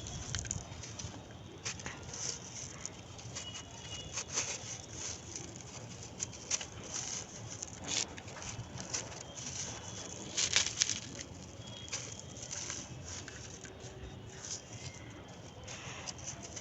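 Crunchy, brittle floor material being crumbled: a dense run of small crackles and crunches, with louder crunches about eight and about ten and a half seconds in.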